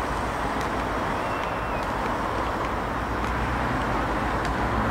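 Steady outdoor background noise: an even rush with a low rumble underneath and a few faint clicks, with no clear single source standing out.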